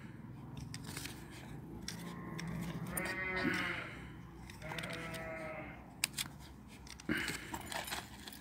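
Bleating twice from a farm animal, each call about a second long, about three and five seconds in. Short metallic clinks of a dog chain come near the start and again in the last couple of seconds.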